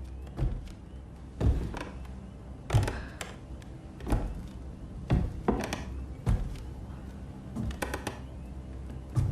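A series of heavy thuds and knocks, roughly one a second and uneven in spacing, over a low steady hum.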